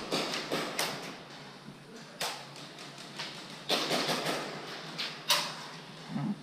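Airsoft guns firing: scattered sharp cracks at an irregular pace, several in quick succession at the start, then single shots a second or more apart.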